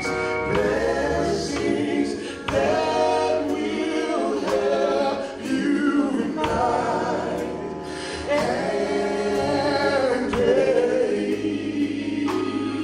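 Male gospel group singing held harmonies, backed by drums, electric bass and keyboard.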